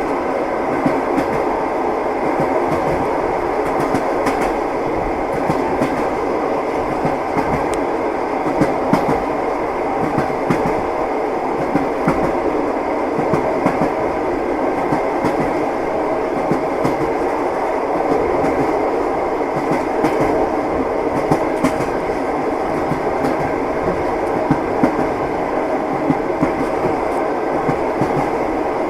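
Train running along the track: a steady rumble of the wheels with frequent short knocks of the wheels over the rails.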